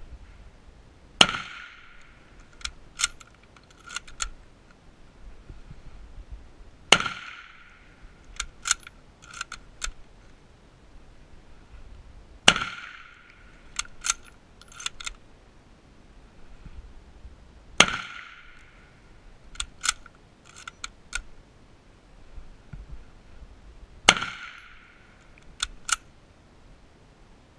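Mosin-Nagant bolt-action rifle fired five times, about every five to six seconds. Each shot is followed a second or two later by a quick run of metallic clicks as the bolt is worked to eject the case and chamber the next round.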